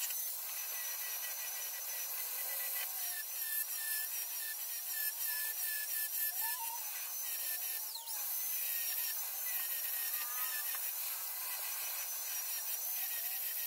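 Grinder grinding down welds on the car's steel C-pillar panel: a steady high whine that dips in pitch now and then as the disc bites.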